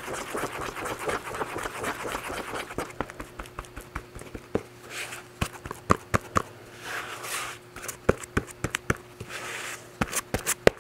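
Body filler being worked with a spreader, likely on a cardboard mixing board: short scraping strokes with many small sharp clicks and taps.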